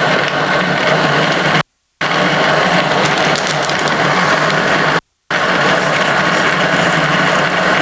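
Electric coffee grinder running steadily, grinding espresso beans, with a constant motor hum under the grinding noise. It cuts off abruptly twice.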